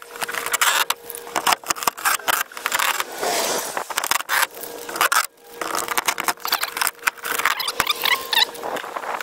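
Hands working at parts under an RV's underbelly: a run of clicks, scrapes and rustling, with a few short squeaks.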